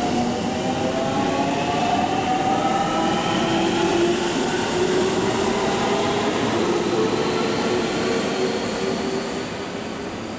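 JR Central 313 series electric train accelerating away from a station: its traction inverter and motors whine in several tones that rise steadily in pitch over the noise of wheels on rail, fading near the end as the train draws off.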